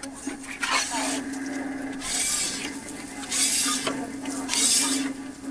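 Cooking utensil scraping across a cooking surface in repeated strokes, about one a second, over a steady low hum.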